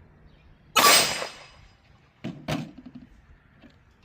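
A single shot from a Colt Python .357 Magnum revolver, a sharp crack about a second in that rings off over half a second. Two softer knocks follow about a second and a half later.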